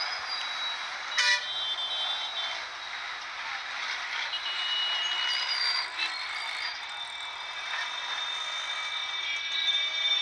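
Road traffic noise with trucks running, a few short high-pitched tones and a sharp knock about a second in.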